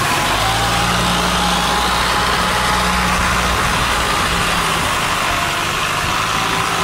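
Multi-cylinder engine of a long-tail boat running hard and steady, driving its propeller against a strong current through a sluice gate, over the rushing, churning water of the propeller wash.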